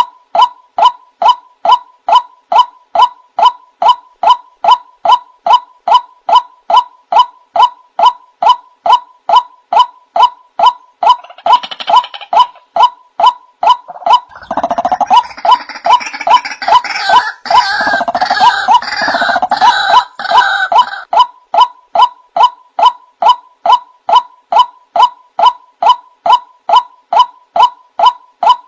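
Male white-breasted waterhen (the 'wak-wak' bird) calling, a short, sharp 'wak' note repeated steadily about two and a half times a second. In the middle, a louder, rougher burst of calling joins in over it for roughly ten seconds.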